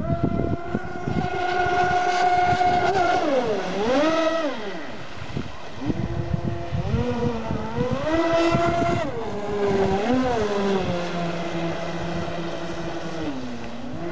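Twin brushless outrunner motors of a large RC speedboat whining at speed, the pitch dipping and rising again several times as the boat runs across the water.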